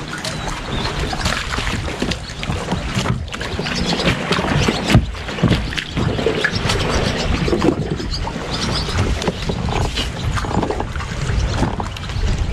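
Water splashing and short knocks as a hooked bass is fought up beside a fishing kayak and netted, over a steady wind rumble on the microphone.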